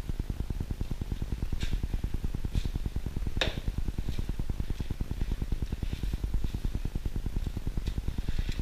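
Steady low mechanical drone with a fast pulse, like kitchen machinery running, under a few light clicks and rustles of hands patting peppercorn crust onto a tuna loin on plastic wrap; the sharpest click comes about three and a half seconds in.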